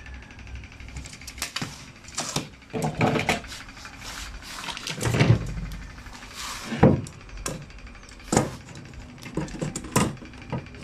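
Irregular knocks, taps and clicks of hand tools, a tape measure and a metal combination square, being handled and set down on a plywood cabinet door. The heaviest knocks come about five and seven seconds in.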